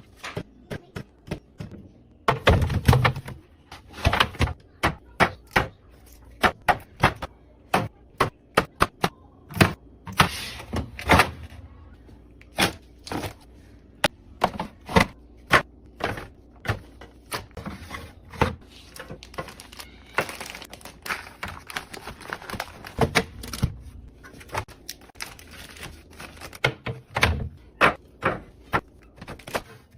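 Food containers, jars and packaging being handled and set down while a refrigerator is organized: a long irregular series of clicks, taps and knocks, with a few heavier thunks.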